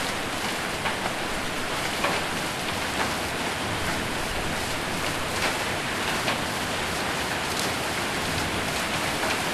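Hail and heavy rain falling on a roof: a steady rush of rain with scattered single sharper hits.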